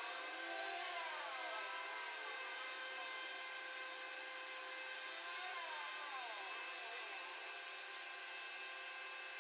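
Small electric motor or power tool running steadily with a whine made of several fixed tones, some pitches sliding up and down now and then.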